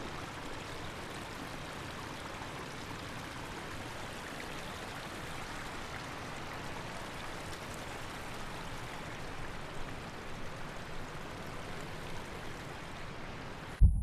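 River water rushing steadily over rocks. Near the end the rush cuts off and a sudden deep boom hits.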